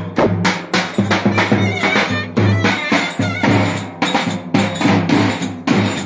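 Live Turkish folk dance tune (oyun havası) played by a band, with a steady drum beat under a wavering melody line and sustained low tones.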